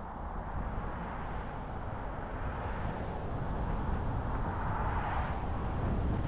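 Vehicle road noise: a steady rumble and hiss of tyres on the road that slowly grows louder.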